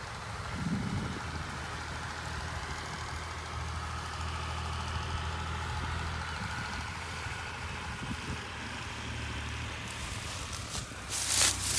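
An engine runs steadily with a low hum. Near the end come crackling crunches, like footsteps on dry straw.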